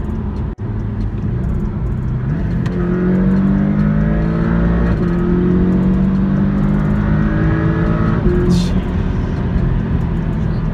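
Porsche 718 Cayman's turbocharged 2.0-litre flat-four at full-throttle acceleration, heard from inside the cabin. The engine note climbs, drops at a quick dual-clutch upshift about halfway through, climbs again and drops at a second upshift near the end.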